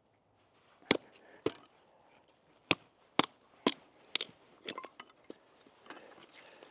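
Small hatchet chopping firewood: about nine sharp knocks of the blade into wood, roughly half a second apart and uneven. The hatchet is tapped and knocked through the wood rather than swung hard.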